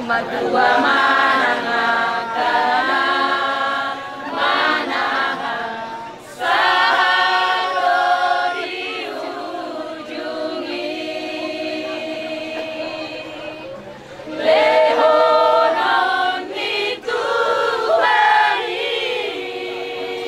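A group of voices singing together in unison, unaccompanied, in phrases that swell loud and fall back to softer held notes.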